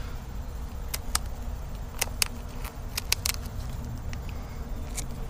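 Scissors snipping through a chicken's flight feathers: a series of sharp, crisp snips at irregular spacing, several in quick pairs, over a steady low rumble.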